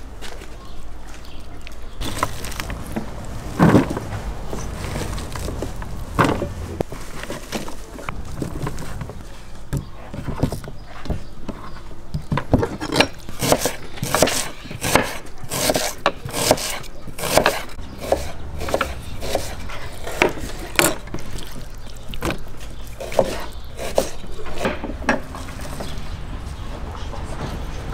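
Knife slicing onion on a wooden cutting board: a quick run of sharp knocks, several a second, blade hitting the board through the middle and later part.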